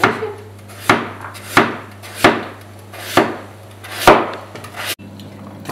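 Chef's knife slicing peeled raw potatoes into rounds on a plastic cutting board: six sharp knocks of the blade through the potato onto the board, roughly one a second.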